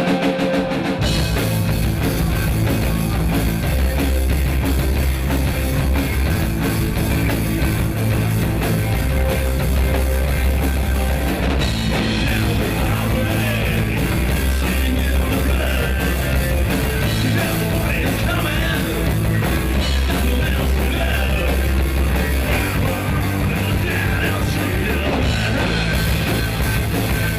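Rock band playing loud, fast rock with electric guitar, bass and drums.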